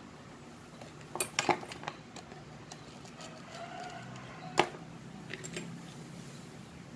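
Small metal clicks and clinks from handling a round terminal lug and its bolt at a motorcycle battery's positive terminal: a few sharp ones about a second in and the loudest a little past halfway.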